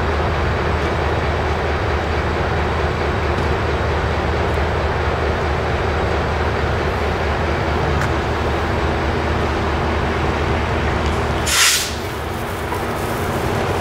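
A MARC MP36PH-3C diesel locomotive running steadily at the station: a constant low drone under a noisy rush. About three-quarters of the way in, a short, loud hiss of air is let out.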